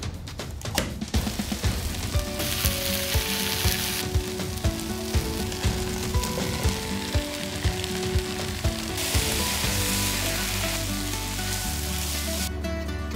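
Meatballs, spinach and garlic sizzling as they fry in a skillet, stirred now and then, under background music with a steady beat.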